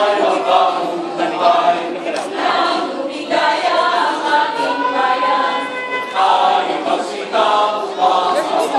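Mixed choir singing; about three and a half seconds in, the voices hold one long note for a couple of seconds before moving on again.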